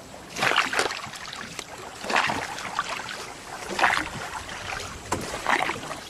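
Oars of a rowing boat stroking through the water: four splashing strokes, one about every second and a half to two seconds.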